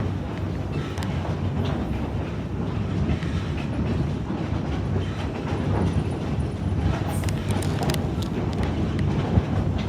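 Narrow-gauge railroad passenger car rolling along the track: a steady rumble of wheels on rail with scattered sharp clicks and clacks, a cluster of them about seven seconds in.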